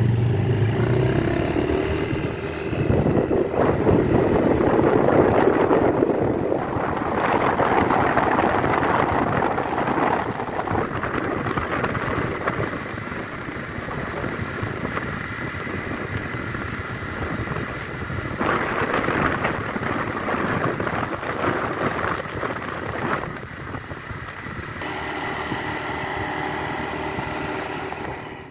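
Yamaha Xeon 125 scooter's carburetted single-cylinder engine running while riding, with wind rushing over the microphone. The wind noise swells twice, and the engine's steady hum comes through more clearly near the end.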